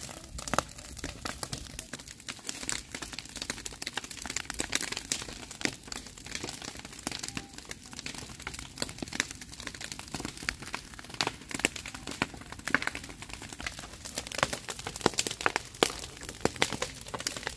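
Dry grass and straw burning, crackling with many irregular sharp pops and snaps.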